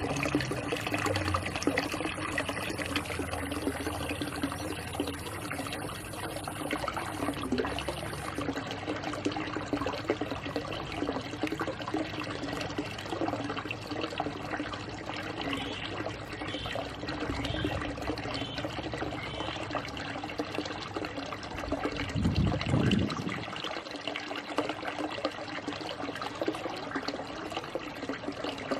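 Running water trickling and splashing steadily into a backyard pool pond, with a brief low rumble about three quarters of the way through.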